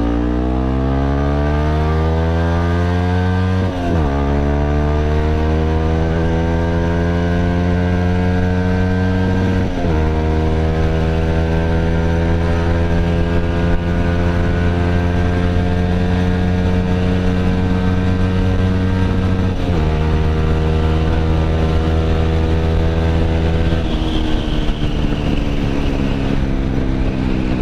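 Yamaha WR155R single-cylinder engine through a GP7 Max 4.1 aftermarket exhaust, accelerating hard from second gear. The revs climb and drop back at three upshifts, then fall as the throttle eases near the end. Wind noise gets into the microphone.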